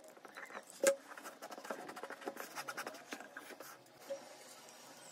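Hands working a burlap-covered cardboard box: light scratching and rubbing of fabric and cardboard with small clicks, and one sharper click about a second in.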